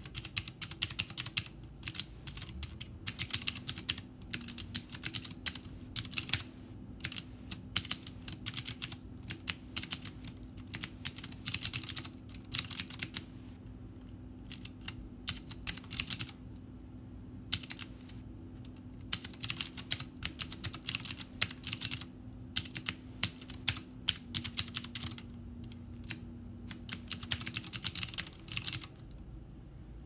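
Typing on a Vortex Core compact mechanical keyboard with clicky Cherry MX Blue switches: rapid keystroke clicks in uneven runs, with a pause of a few seconds about halfway through and shorter pauses elsewhere.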